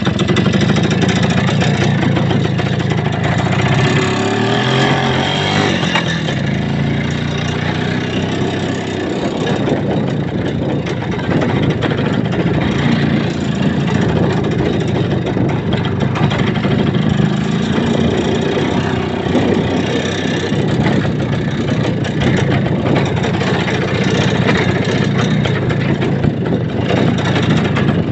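A vehicle's engine running loudly and continuously while under way, its pitch rising and falling with the throttle.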